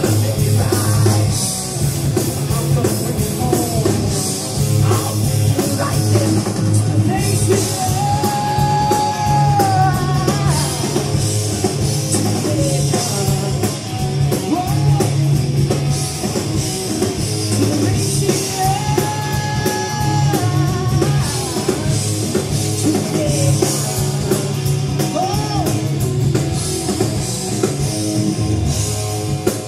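Heavy metal band playing live: distorted electric guitars, bass and drums, with a singer holding long notes about eight seconds in and again about nineteen seconds in.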